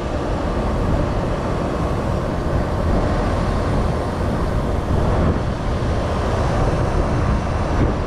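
Outdoor condensing unit of a Trane split-system air-cooled heat pump running steadily just after start-up, its compressor and condenser fan giving a constant low noise.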